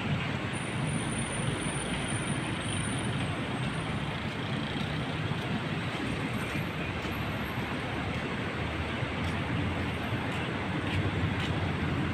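Steady city road traffic noise, with cars and other motor vehicles driving along the street.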